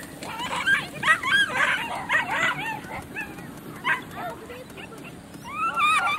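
Excited dogs yipping and whining in short, high, rising cries. The cries come thick and fast in the first two and a half seconds, are sparse in the middle, and crowd in again near the end.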